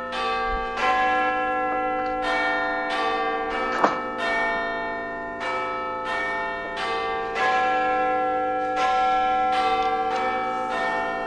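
Bells ringing a run of struck notes, about one strike every second or less. Each note rings on and overlaps the next. There is a brief sharp click a little under four seconds in.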